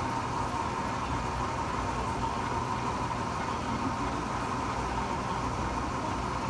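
Laser engraving machine running as it etches a bottle's label: a steady machine hum with a steady high tone, unchanging throughout.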